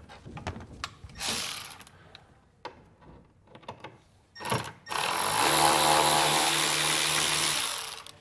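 Milwaukee cordless ratchet running, backing out the T15 Torx screw that holds the tail light: a short burst about a second in, then a steady run of about three seconds in the second half.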